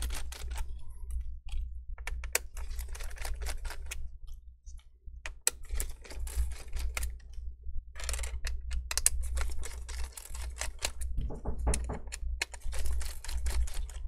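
Irregular small clicks and taps of a precision screwdriver turning the battery's retaining screws and of fingers working the battery connector inside an opened laptop, with a pause of about a second midway, over a low steady hum.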